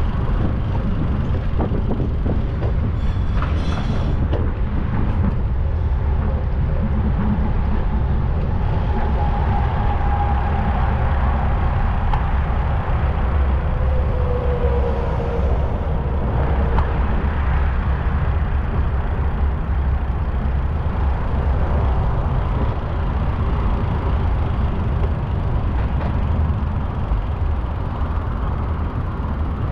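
City street traffic heard from a moving bicycle: a steady low rumble of vehicles and wind on the microphone, with a couple of faint squeals about ten and fourteen seconds in.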